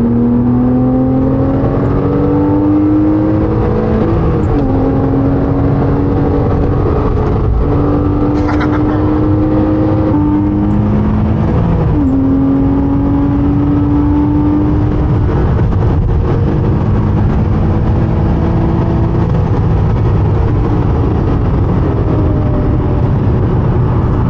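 Porsche 987.2 Cayman S's flat-six engine running under load, its note climbing steadily through each gear and falling or jumping at gear changes several times.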